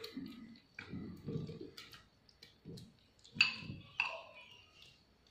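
A metal spoon clinking and scraping against a clear bowl as cut mango is spooned into a plastic blender jug: several light clinks and soft thuds, spaced about a second apart.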